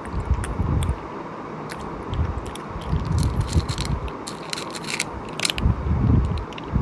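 Close-miked mouth sounds of someone eating cooked sheep's head: clusters of wet chewing and biting, with sharp crackly clicks scattered through.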